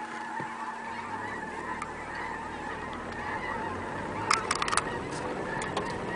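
A large flock of birds calling all at once, a dense continuous chorus of honking calls. A few sharp clicks come about four and a half seconds in.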